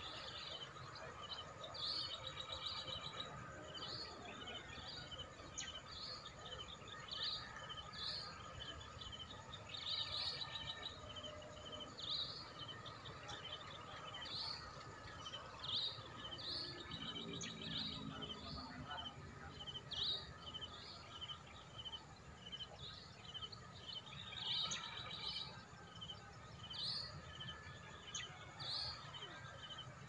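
Songbirds chirping, short high chirps coming again and again about every second, over a faint steady background hum.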